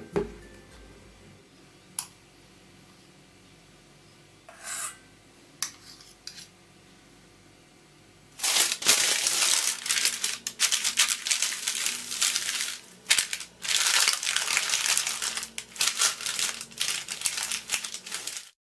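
A few faint clicks and knocks, then from about eight seconds in, loud crinkling and rustling of baking paper and plastic cling wrap being handled over a mold, in uneven spurts that stop abruptly near the end.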